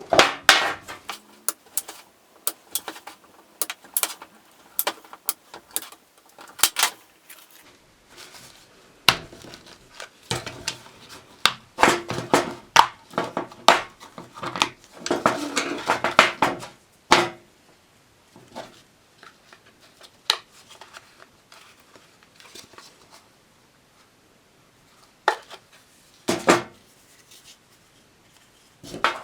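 Irregular clicks, knocks and clattering of hard objects being handled, densest around the middle, with a couple of sharper knocks near the end.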